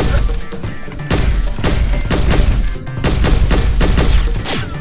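Rapid automatic-gunfire sound effects, heavy and booming, laid over Nerf blasters firing, in long bursts with short breaks between them.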